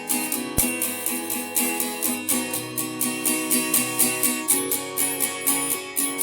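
Music led by a guitar, strummed in a steady rhythm.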